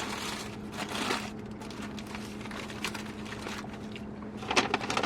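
Paper fast-food bag and wrappers rustling and crinkling, with a denser burst of rustling near the end, over a steady low hum inside the car.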